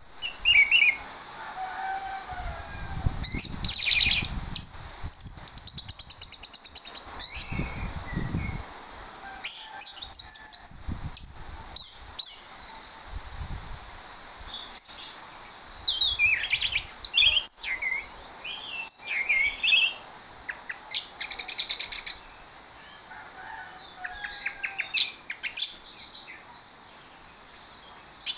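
Male orange-headed thrush singing loudly: a varied string of whistled phrases and fast rattling trills, run off one after another as it brings out its repertoire of imitated calls. A few low thuds come between phrases in the first several seconds.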